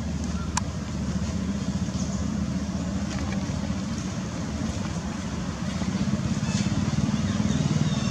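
A steady low rumble, like a motor vehicle's engine, that grows louder about five and a half seconds in.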